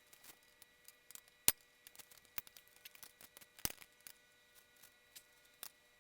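Scattered light clicks and taps of hand work on a motorcycle, with two sharper knocks, about a second and a half in and just under four seconds in, over a faint steady hum.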